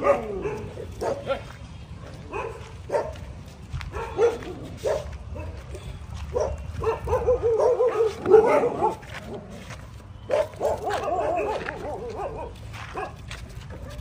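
A pack of stray dogs crowding to be fed, with many short barks and yips from several dogs and a few longer wavering whines around the middle.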